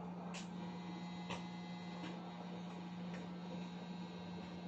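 Steady low electrical hum from bench equipment, with a few faint light ticks of small tools, roughly one a second.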